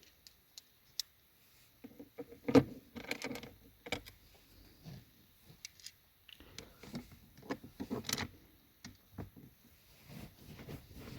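Scattered clicks, taps and small rattles of screws, a screwdriver and plastic centre console parts being handled while the console lid is screwed in place. The loudest knock comes about two and a half seconds in, with another cluster of rattles around eight seconds.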